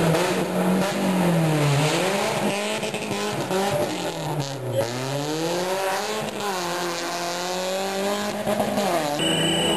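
Rally car engine revving hard as the car slides around a barrel, with tyre noise under it. The revs drop and climb again twice.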